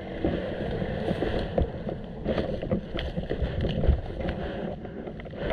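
Wind buffeting a body-worn camera's microphone as a rumbling noise, with scattered irregular knocks and rustles from the wearer moving.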